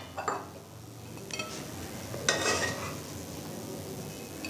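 A metal spoon scraping and clinking against a stainless steel pan while stirring and scooping up cooked mixed vegetables: a few short metallic scrapes and clinks about a second apart.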